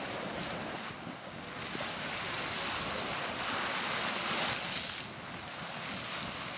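Geyser erupting: a steady rush of steam and splashing water, swelling louder from about two seconds in and dropping back a little about five seconds in.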